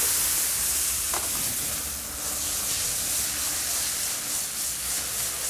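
Beef filet medallions and button mushrooms sizzling in butter in a hot sauté pan. The sizzle is loud at first and eases off gradually.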